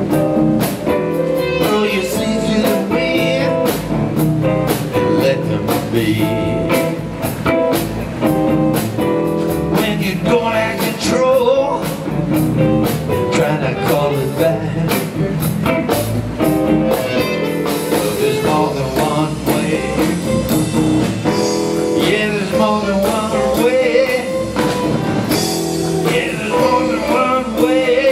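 Live electric blues band playing an instrumental passage: lead guitar over electric bass and a drum kit with cymbals.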